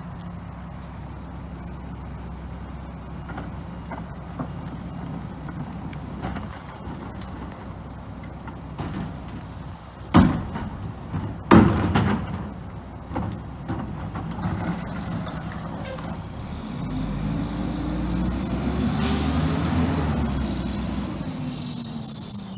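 Rear-loader garbage truck's diesel engine idling, with two loud bangs about ten and eleven and a half seconds in as a trash cart is emptied against the rear hopper. From about seventeen seconds the engine revs up and back down as the packer runs, with a short hiss of air near nineteen seconds.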